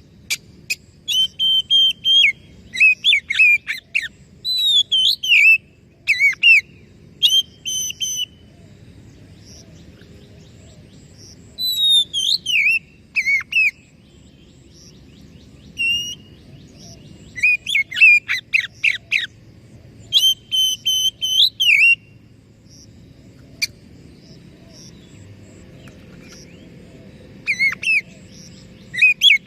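Oriental magpie-robin (kacer) singing: bursts of loud, varied whistled phrases with sliding notes, broken by pauses of a few seconds, the longest about a third of the way in and another shortly before the end, over a faint low background hum.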